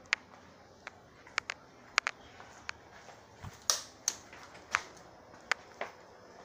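A string of about a dozen sharp, irregularly spaced clicks and taps, with one duller low thump about three and a half seconds in.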